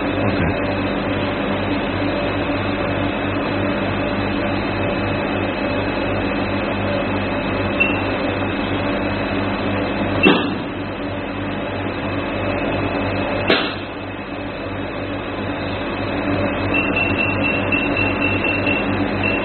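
AES IPLS408 IPL hair-removal machine powered on and running with a steady hum, its touchscreen booting and being operated. Two sharp clicks come about ten and thirteen and a half seconds in.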